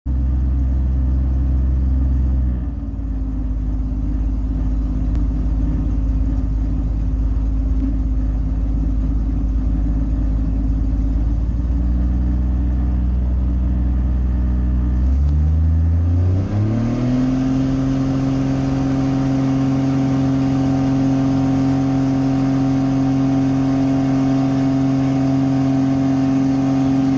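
Light aircraft's piston engine and propeller running steadily at low power, then throttled up about fifteen seconds in. The pitch rises over a second or two and settles on a higher, steady note.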